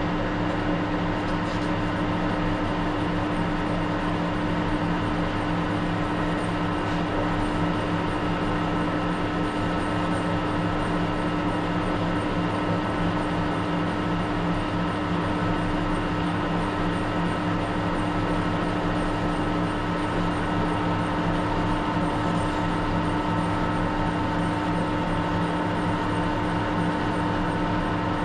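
Metal-turning centre lathe running at a steady speed, its motor and gearing giving a constant machine hum with several held tones.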